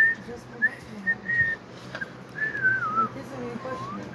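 A person whistling a tune: several short high notes, then a longer note in the second half that wavers and slides down in pitch.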